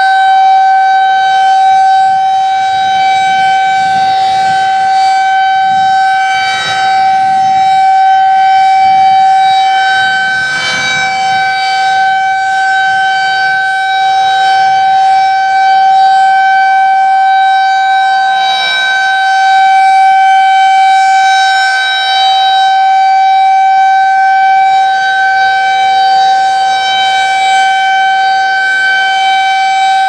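Federal Signal 2001-SRNB 12-port electromechanical civil defense siren sounding a steady, unchanging tone during a test. The loudness swells and dips slightly as the rotating horn turns.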